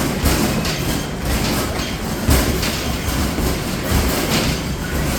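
Arcade basketball machine in rapid play: basketballs thudding against the backboard and rim several times a second, over a continuous rumbling rattle of balls rolling back down the return ramp.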